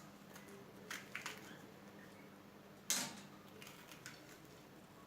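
Faint clicks and light handling noises as the seeds are removed from halved bell peppers, with one sharper knock about three seconds in.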